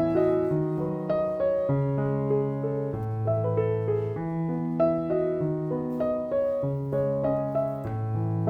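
Background piano music: a gentle melody over sustained bass notes, with a new note about every half second.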